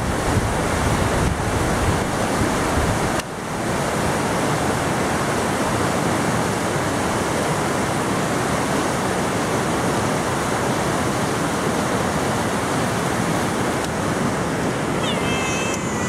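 Steady rush of a river running high with snowmelt, with a brief dip about three seconds in.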